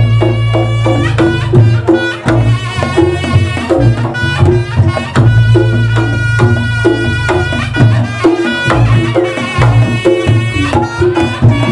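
Reog Ponorogo ensemble music: kendang hand-drum strokes in a busy rhythm over a low gong-like drone, with a sustained, slightly bending reedy melody line above.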